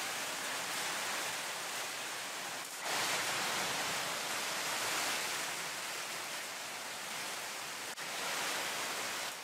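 Steady hiss of background noise with no distinct events. It shifts abruptly in level about three seconds in and dips briefly about eight seconds in, where the shots change.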